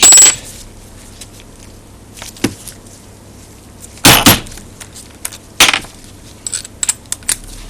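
Metal tools and parts being handled on a workbench: a few separate sharp knocks and clatters, the loudest about four seconds in, with lighter clicks between.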